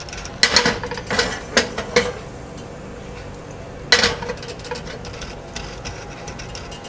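Cookware clatter from a non-stick frying pan as butter is swirled around it: a quick cluster of knocks and clinks in the first two seconds and another single knock about four seconds in.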